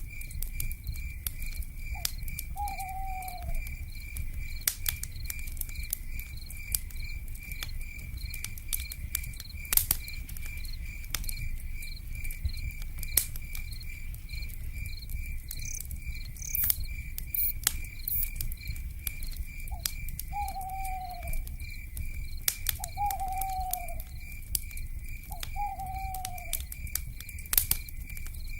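Crackling wood fire with frequent sharp pops and a low rumble, over a steady pulsing insect trill. An owl gives a short falling call about two seconds in, then three more times near the end.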